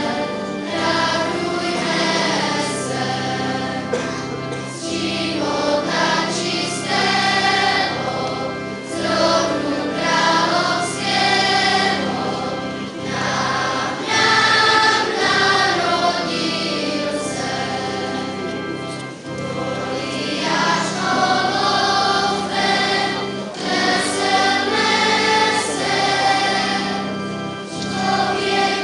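A choir of women and children singing a Christmas song together, in phrases of a few seconds with short breaths between them.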